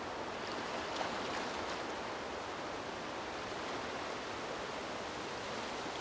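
Gentle lagoon waves lapping in a steady soft wash, with a slightly louder splash about a second in.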